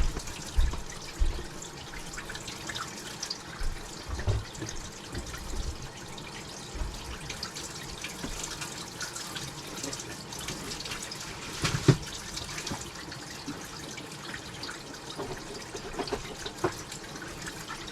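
Tap running steadily into a sink, letting the water run for a few minutes to flush the line before a drinking-water test sample is taken. Scattered light knocks come through it, the loudest about twelve seconds in.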